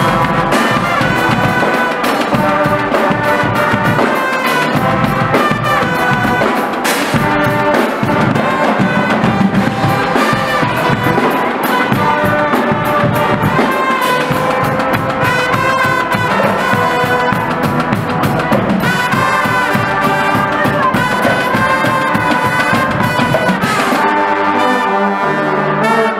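Carnival brass and drum band playing loud: trombones, trumpets and tubas carry a tune over a steady drum beat.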